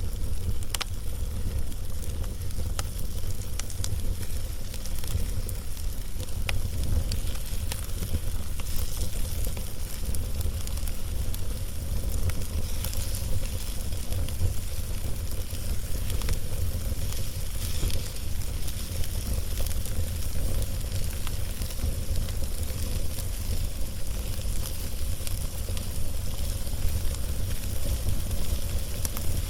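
Log fire burning, crackling with scattered sharp pops over a steady low rumble.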